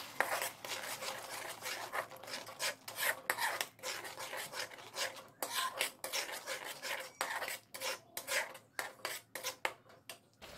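Slotted metal spatula scraping and stirring a thick masala paste around a metal kadai, in many quick, irregular strokes.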